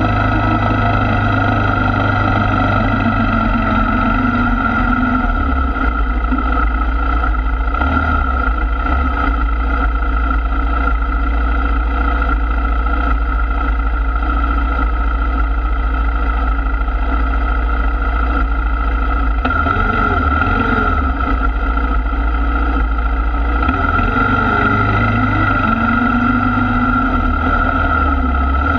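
Sport ATV engine running at a fairly steady speed, a constant drone whose low end shifts several times as the revs change.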